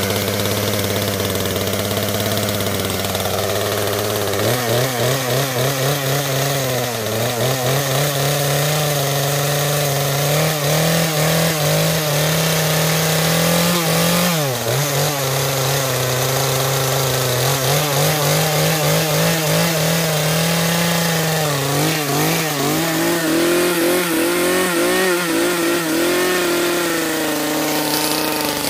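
Poulan P3314 33cc two-stroke chainsaw engine running just after starting. It idles low and steady for about four seconds, then picks up to a faster, uneven run whose pitch wavers and dips briefly a few times.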